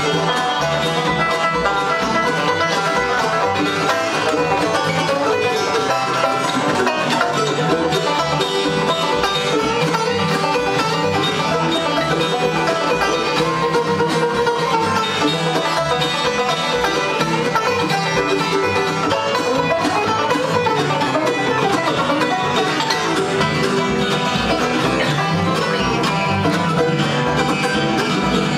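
A bluegrass band playing an instrumental, with a resonator banjo picking the lead over acoustic guitar backing.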